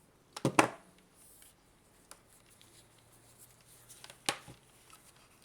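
Handling noise from small objects being picked up and moved: a quick cluster of sharp clicks and knocks about half a second in, and another single sharp click about four seconds in.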